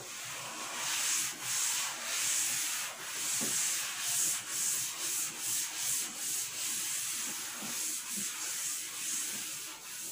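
Chalkboard duster wiping chalk off a blackboard: a dry rubbing hiss in repeated back-and-forth strokes, about two a second.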